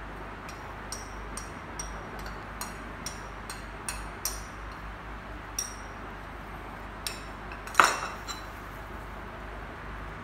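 Metal utensil clinking against a ceramic bowl while beating egg and cornstarch together to work out the lumps: irregular light taps a few times a second, with one louder clink about eight seconds in.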